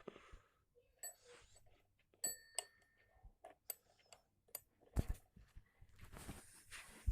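Alarm clock being handled: a series of small clicks and knocks, with two short bell-like rings about one second and two and a half seconds in.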